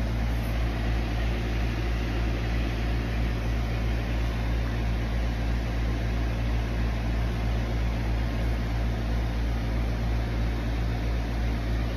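Steady low machine hum with an even hiss above it, unchanging.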